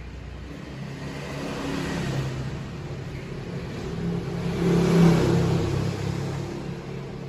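A motor vehicle passing by: its engine grows louder to a peak about five seconds in, then fades away.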